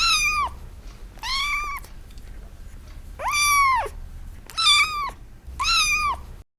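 Domestic cat meowing five times, about a second apart, each meow high-pitched and rising then falling in pitch.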